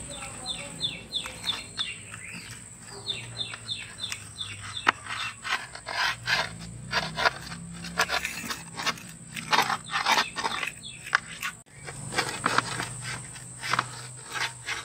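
Pizza cutter's steel wheel rolling through a large crisp-crusted pizza on a metal tray, making a dense run of crunching clicks through the middle and later part. Near the start a bird calls twice, each call a quick series of short descending chirps.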